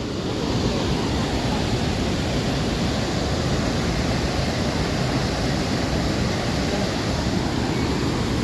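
Dhuandhar Falls on the Narmada river: the steady, unbroken rush of a large waterfall, heard close by.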